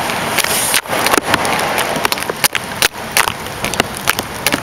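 Hard rain falling: a steady hiss with irregular sharp clicks of drops striking and dripping close by, several a second.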